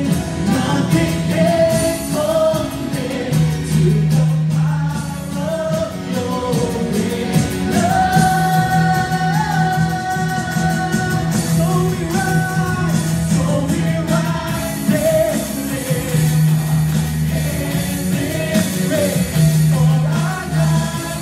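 A live worship band plays a song: several voices sing held, gliding melody lines over acoustic guitar and keyboard. A steady low bass note runs underneath.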